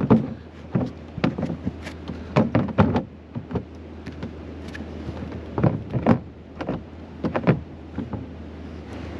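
Irregular hard clunks and clicks of a plastic Max Air roof-fan cover being handled and set down over the vent on a camper roof, over a steady low hum.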